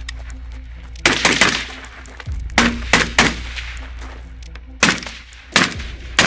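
Semi-automatic AK-pattern rifle with a suppressor firing fast strings of shots: three quick shots about a second in, three more a moment later, then single shots spaced apart, over a low steady drone.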